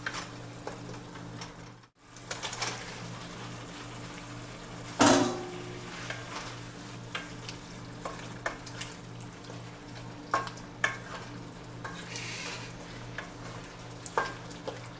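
Food sizzling in a hot pan as it is stir-fried, with a utensil clicking and scraping against the pan. There is a loud knock about five seconds in, and the sound drops out briefly near two seconds in.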